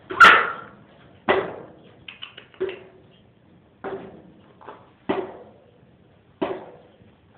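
A series of sharp knocks, about one every second and a quarter, each ringing briefly. The first is the loudest, and there are a few faint ticks in between.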